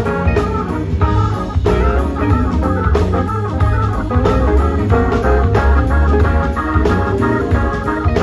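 Live blues-rock band playing loud: an organ plays a run of sustained chords and notes, with electric guitar, a heavy bass line and drums underneath.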